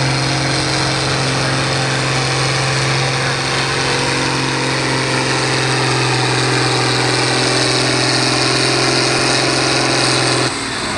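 John Deere 4430's turbocharged six-cylinder diesel running flat out under the load of a pulling sled, holding a steady pitch. The engine note drops away suddenly about ten and a half seconds in.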